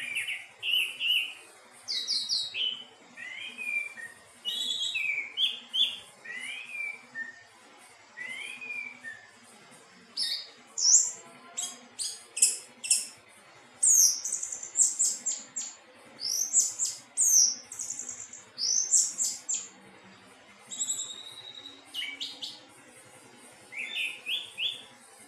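Anis teleng thrush singing a varied song of quick whistled sweeps and chirps, delivered in short phrases with brief pauses between them.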